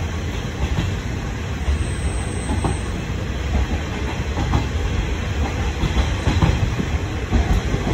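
Former JNR KiHa 30 diesel railcar under way, heard from inside the car: a steady low rumble of its diesel engine and wheels on the rails, with a few faint, irregular clicks of wheels over rail joints.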